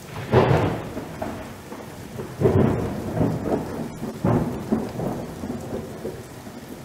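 Thunderstorm sound effect: steady rain with rolls of thunder. The loudest rumbles come about half a second in, at about two and a half seconds and just after four seconds.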